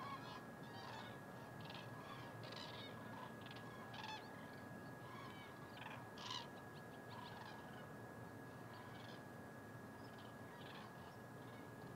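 A flock of common cranes calling: many short calls overlapping, with one louder call about six seconds in.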